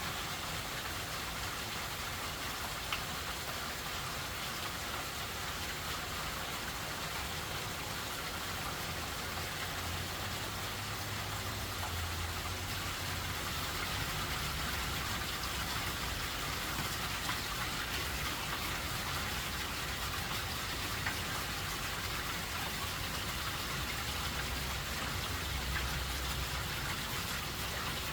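Steady hurricane rain falling, an even hiss with a low rumble that swells and fades beneath it. A couple of single louder drops stand out, one about three seconds in and one past the twenty-second mark.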